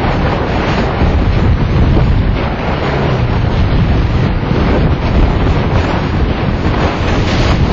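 Wind buffeting the microphone of a camera on a moving motorcycle: a loud, steady rush, heaviest in the low end, that masks the engine.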